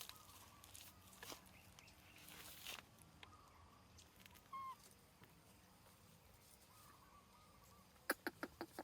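Faint, short high-pitched squeaks from a small animal, a few times, with a quick run of about six sharp taps near the end.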